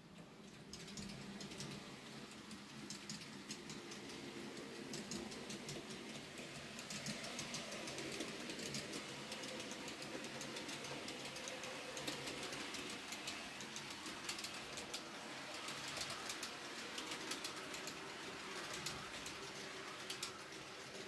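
N-scale model train running on track: a low motor hum with rapid clicking from the wheels on the rails. It grows louder over the first several seconds as the train comes closer.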